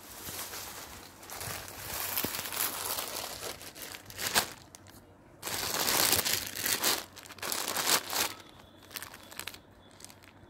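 Plastic packaging and stiff fabric crinkling and rustling as they are handled, in uneven bursts that are loudest in the middle and die away near the end.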